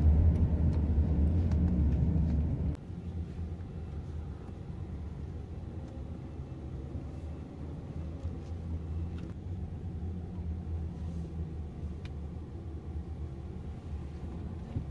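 Car cabin noise while driving: a loud low road rumble that drops to a much quieter low rumble about three seconds in, as the car slows through a parking lot.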